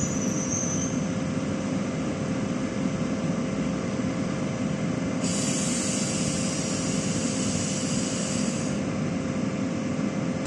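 Train noise at a station: a steady low rumble with a constant hum. A hiss comes in about five seconds in and stops about three and a half seconds later.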